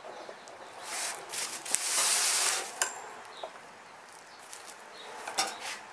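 A screwdriver prying between the two halves of a Volkswagen bus safari window frame: a harsh scraping for about a second near two seconds in, with sharp metal clicks and a brief high ping just after it. A few more light clicks near the end.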